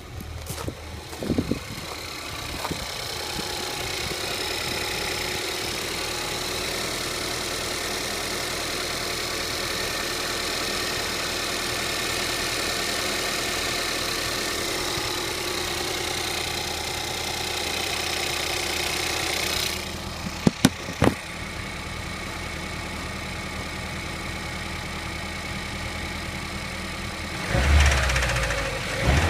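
Ford Fiesta ST's 1.6 EcoBoost turbo four-cylinder running steadily, with a suspect noise that the owner cannot place, on a car with under 8000 km. About two-thirds of the way through it gets quieter after two sharp clicks, and near the end comes a low, louder swell.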